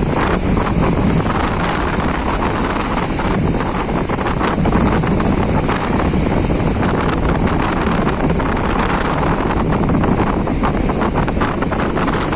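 Strong wind buffeting the microphone over the steady rush of heavy sea waves.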